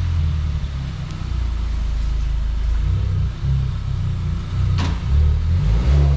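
Honda Civic Type R's turbocharged four-cylinder, with an HKS cat-back exhaust, running at low revs as the car is moved slowly: a deep, uneven engine sound, with a short sharp noise about five seconds in.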